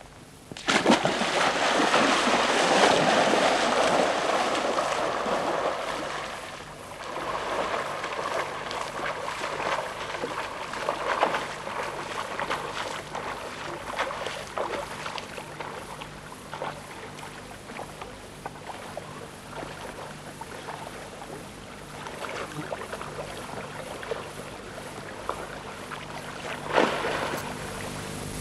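A person wading into lake water and swimming, splashing. The splashing is loudest in the first few seconds, then goes on as irregular splashes.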